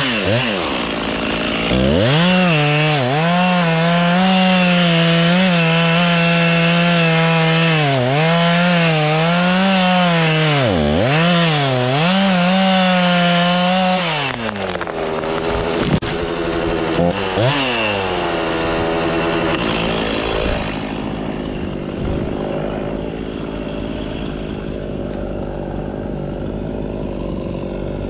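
Two-stroke chainsaw running at full throttle through a cut, its pitch dipping again and again as the chain loads up in the wood. Past the middle it revs up and down, then gives way to a steadier rough running noise.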